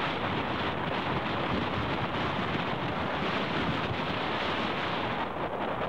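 Strong wind blowing across a camcorder microphone: a steady rushing noise that does not let up.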